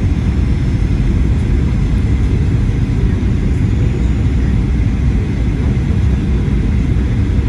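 Steady low rumble heard inside the passenger cabin of a Boeing 737-800, from its CFM56-7B jet engines and the airframe, with a faint steady whine above it.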